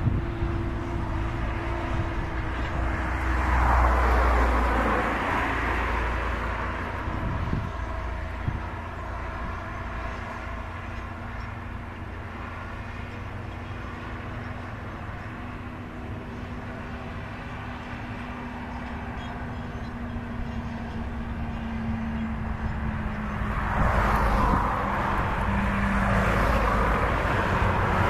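John Deere 7530 tractor's diesel engine running steadily under load as it pulls a plough. Road vehicles pass close by, loudest a few seconds in and again over the last few seconds as a truck goes by.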